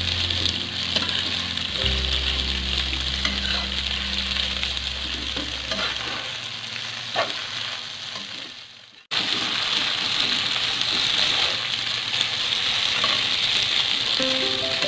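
Kwetiau flat rice noodles with chicken and chilli sizzling in hot oil in a wok as a metal spatula turns them, with a few clicks of the spatula against the pan. The sizzle fades down and comes back abruptly about nine seconds in. Faint background music plays under the first half and returns near the end.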